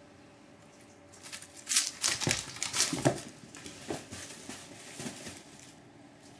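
Egyptian Mau kitten scrambling and dashing off, its paws and claws making a quick run of scrabbling, rustling patters. It starts about a second in, is loudest in the next two seconds and fades out near the end.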